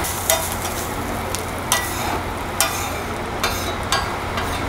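Metal spatula scraping and tapping on a flat iron griddle as mushrooms and vegetables are stirred and fried, with sharp scrapes about once a second over a steady sizzle.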